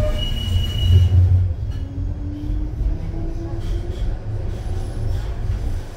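Tampere light-rail tram (Škoda ForCity Smart Artic) running, heard from inside the passenger car: a steady low rumble, with a brief high squeal in the first second and a faint whine rising in pitch in the middle.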